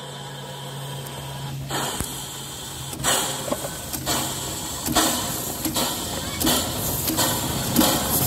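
Replica 1802 Trevithick steam locomotive getting under way: a rush of steam about two seconds in, then its exhaust chuffing from the chimney, about one beat a second and quickening.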